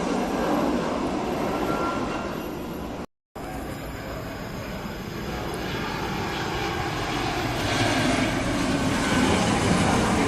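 Jet airliner engines on final approach: a steady roar that cuts out briefly about three seconds in, then grows steadily louder as the aircraft closes in.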